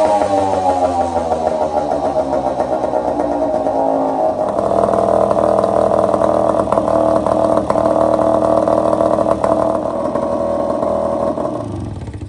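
Small outboard motor running on a test stand with its leg in a bucket of water. Its revs sink over the first few seconds, settle into a steady run, and the engine stops shortly before the end.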